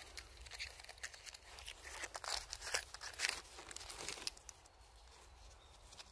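Plastic greenhouse film crinkling and rustling as it is handled: irregular crackles, busiest in the middle and dying down after about four and a half seconds.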